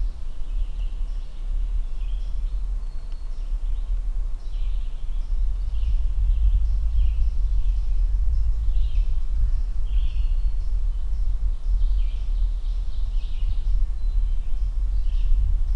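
Songbirds chirping and calling over and over, short separate notes throughout, over a low, fluctuating rumble of wind on the microphone.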